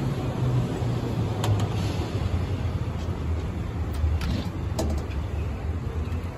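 Tokyu 8500-series electric train (set 8631F) passing at high speed and pulling away: a steady low rumble and hum of the train running on the rails, with a few sharp clicks. It fades slightly near the end.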